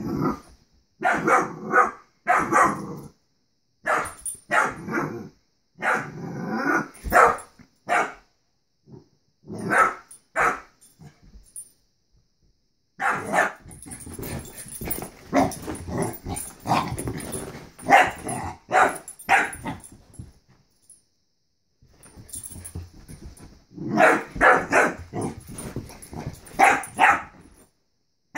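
Dog barking in volleys of several barks with short pauses between them: excited play barking at a balloon.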